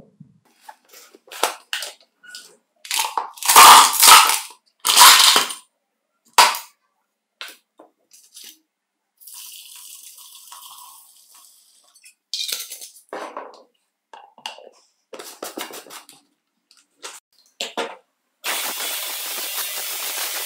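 Plastic tool-housing parts clacking and knocking as they are handled, then liquid poured into a plastic tub with a soft steady splashing, then more light clicks. About eighteen seconds in, a Fuyang ultrasonic cleaner starts with a sudden steady high hiss.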